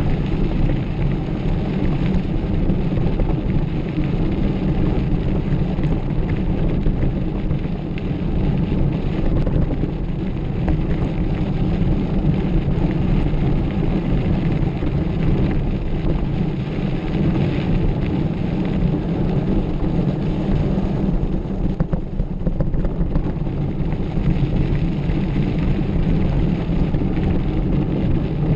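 Steady low rush of wind on the microphone of a mountain bike being ridden fast, mixed with the rattle of the bike over a rough trail.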